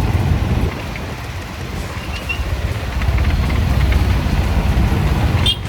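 UM Renegade Commando motorcycle on the move: a low, unsteady rumble of engine and wind on the microphone, briefly broken off near the end.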